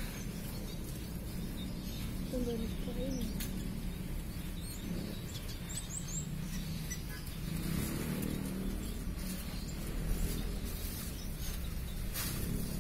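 Small local Indonesian finches (munias) chirping faintly in an aviary, with a few high chirps about halfway through, over a steady low background rumble.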